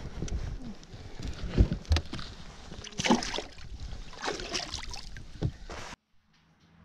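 Knocks, bumps and rustling from handling the camera and a landed bass aboard a fishing boat, with some wind on the microphone. The noise cuts off suddenly about six seconds in.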